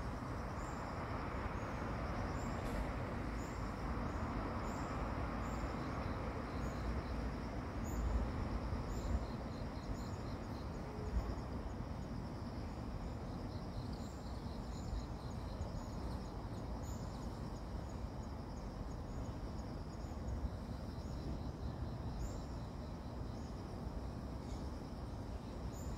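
Steady background noise with a low rumble and a few soft thumps, overlaid by faint trains of high, rapidly repeated chirps.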